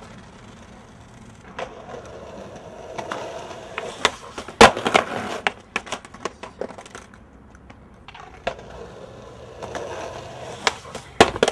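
Skateboard wheels rolling, then a loud clack of the board hitting the ground about four and a half seconds in, followed by clattering knocks. A second roll near the end ends in more sharp board clacks.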